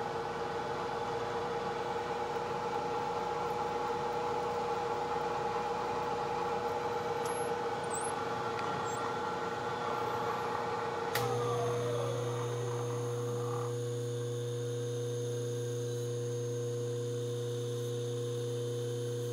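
Machine-tool spindle motor running steadily with a whine while drilling a steel sprocket, then switched off about 11 seconds in, its whine falling in pitch as it spins down. A steady electrical hum carries on afterwards.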